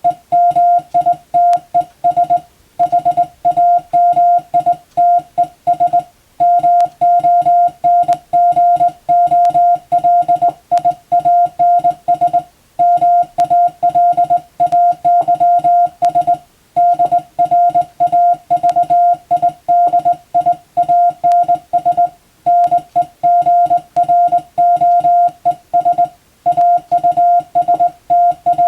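Morse code (CW) sent by hand on a telegraph key, heard as a single-pitch beep keyed into dots and dashes. Short pauses every few seconds separate the code groups of a practice telegram.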